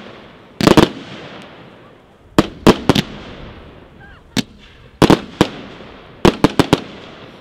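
Fireworks cake (Royal Fireworks Royal Elements, a 4×25-shot compound) firing: sharp bangs in clusters of two to four, a new cluster every second or two, each cluster trailing off in a long rolling echo.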